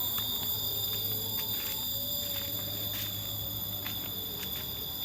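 Insects calling: a steady, high-pitched drone with several tones, with faint scattered clicks and rustles and a low hum that fades about four seconds in.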